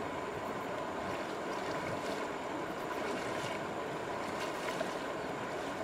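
Shallow river water running with a steady rush, with a few soft splashes of someone wading through it.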